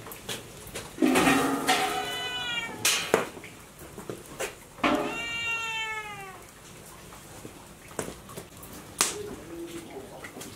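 A cat meowing twice, long drawn-out meows falling in pitch. Between and after them come a few sharp knocks and clatters from the wok lid and the firewood at the stove.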